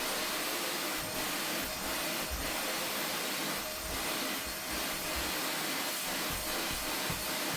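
Vacuum cleaner running steadily with a constant whine, its nozzle being worked over sofa upholstery with soft irregular low bumps.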